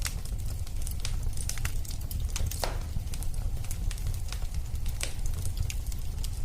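Wood fire burning in a fireplace: a steady low rumble of flames with irregular sharp crackles and pops, one louder snap a little past halfway.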